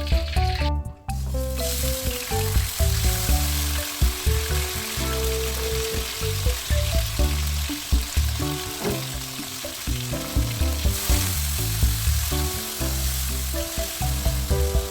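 Food sizzling as it fries in hot cooking oil in a pan, starting about a second and a half in after a brief break, with background music playing underneath.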